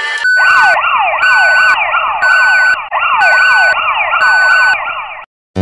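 Electronic siren-like sound effect. Rapid falling sweeps repeat several times a second, under a high beep that sounds for half a second about once a second. It cuts off suddenly just before the end, and a sudden bang hits right at the end.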